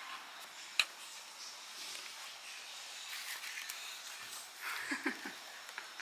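Steady room hiss with one sharp click about a second in, then soft rustling and handling noise near the end as a woven basket packed with shredded paper grass is held and moved.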